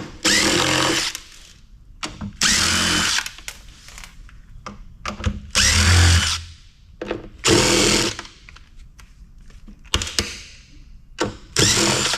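Cordless drill-driver run in short bursts of about a second, five times, with small clicks and knocks between them.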